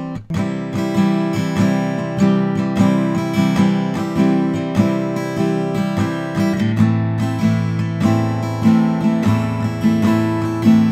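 Acoustic guitar strummed in a steady rhythm, close-miked through a USB condenser microphone. The chord changes about six and a half seconds in.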